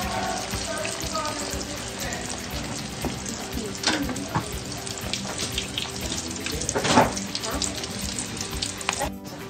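Beef pieces deep-frying in a pan of hot oil: a steady sizzle full of small crackles and pops, with louder pops about four seconds and seven seconds in.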